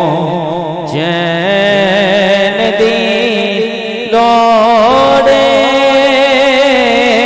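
Islamic devotional song (naat): a male voice sings a long, wavering melody with no clear words over a steady drone. It gets louder about four seconds in.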